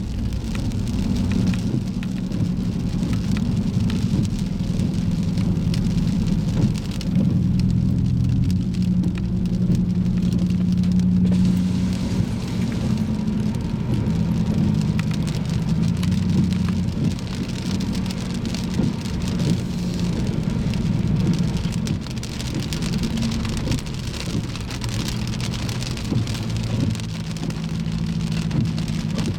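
Rain falling on a car, over the steady low drone of the vehicle's engine and road noise.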